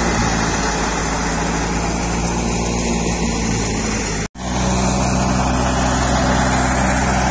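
Tractor-driven wheat thresher running steadily: a loud, even mechanical noise of the tractor engine and the threshing drum at work. The sound cuts out for an instant about four seconds in and then carries on unchanged.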